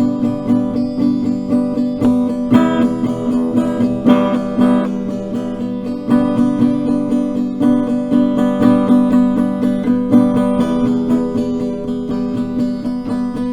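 Music: a strummed acoustic guitar playing an instrumental passage with no singing.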